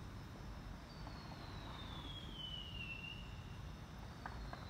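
Distant whistling firework: a thin whistle that slides down in pitch over about two seconds, starting a second in, with a second whistle beginning near the end. A steady low rumble runs underneath.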